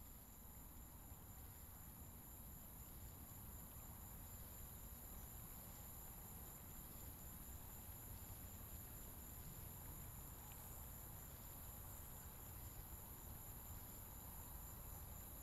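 Faint, steady chorus of crickets, a constant high shrill with a low rumble beneath.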